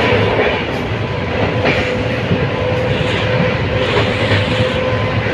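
Shramjeevi Express passenger train running at speed, heard from a coach window: a steady rumble and rush of wheels on the track, with a few sharp clacks at irregular gaps as the wheels cross rail joints.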